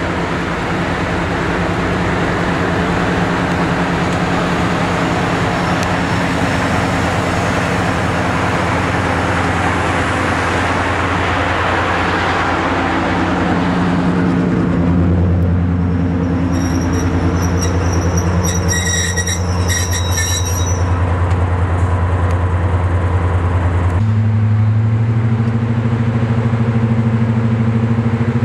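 Class 55 Deltic diesel locomotive, its two Napier Deltic two-stroke engines running, drawing into a platform and slowing past, with a high squeal from the train for a few seconds around the middle. About four seconds before the end the sound cuts to the Deltic's engines running steadily close by.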